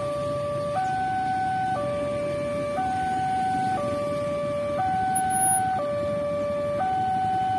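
Railway level-crossing warning alarm sounding a steady two-tone hi-lo signal that switches pitch about once a second, warning that a train is approaching. Road traffic and motorcycles run underneath.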